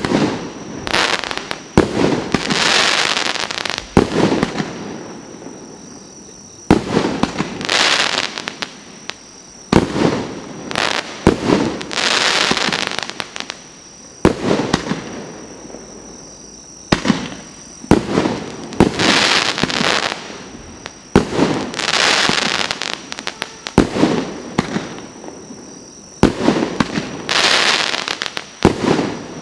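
A 19-shot consumer fireworks cake with 1.5-inch (40 mm) tubes firing. Shots come every one to three seconds, sometimes several in quick succession. Each is a sharp bang followed by a fizzing hiss of a second or two from the glittering, twinkling stars.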